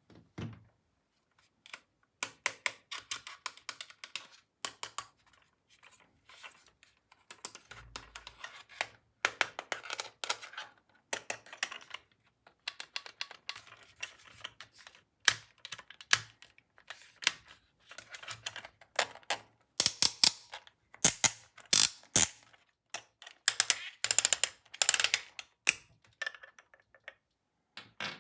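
Rapid irregular plastic clicks and taps with short bursts of crinkling: toy tools and their plastic packaging being handled and unpacked.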